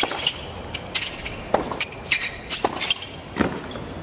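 Tennis rally on a hard court: rackets striking the ball and the ball bouncing, a string of sharp pops over a hushed stadium crowd.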